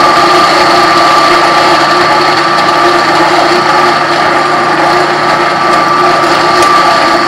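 Drill press running steadily, its motor and spindle giving an even hum with a high whine, as the turning bit smooths out the sharp edges of a drilled hole.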